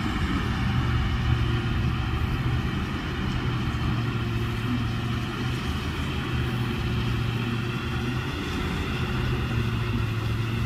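Heavy diesel engines of a big tractor and a stuck garbage truck running steadily under load as the tractor drags the truck along a ditch on a chain, with a steady hiss of falling rain.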